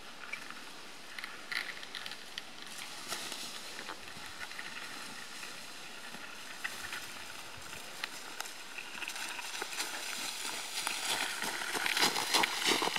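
Footsteps and trekking poles crunching and clicking through dry leaf litter, faint at first and growing louder and busier over the last few seconds as the walker comes close.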